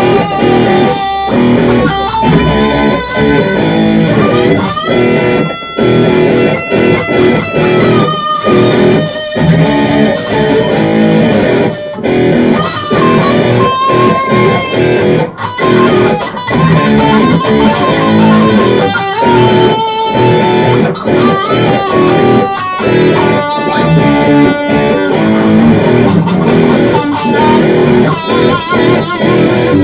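Hard rock in E minor on electric guitar: a lead line of held notes with vibrato and sliding pitch over a low accompaniment and a steady beat.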